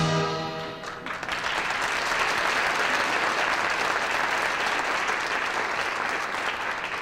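Orchestral music dies away in the first second, and audience applause follows, even and steady.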